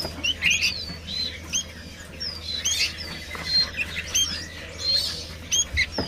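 Many caged small birds chirping: short, high chirps and whistled notes, several a second and overlapping, over a steady low hum.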